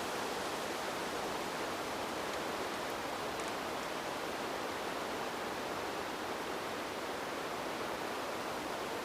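Wind blowing as a steady, even rush with no gusts or changes in strength.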